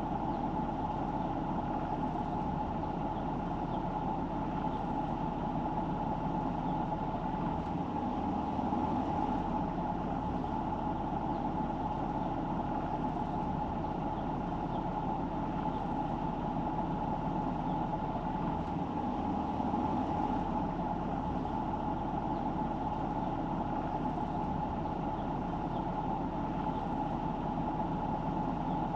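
Steady road noise of a car being driven: tyre and engine sound that holds even throughout, with no sudden events.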